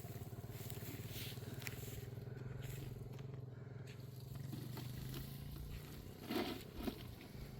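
A small engine running steadily at an even, low pitch.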